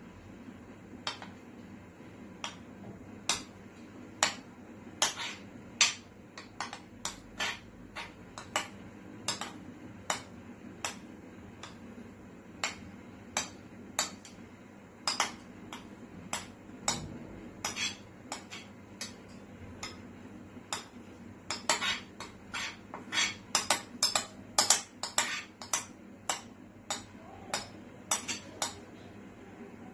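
Metal spoon scraping and knocking against a ceramic bowl, clinking irregularly about twice a second as thick cake batter is scraped out. The clinks come faster and louder for a few seconds past the middle.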